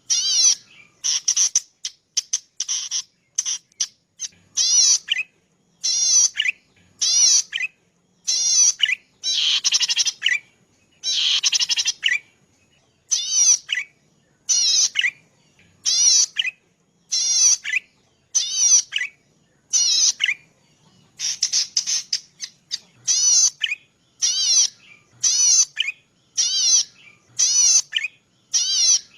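A cici padi, a small grassland warbler, singing. It repeats short, high, fast-warbling phrases roughly once a second, each under a second long, with brief pauses between.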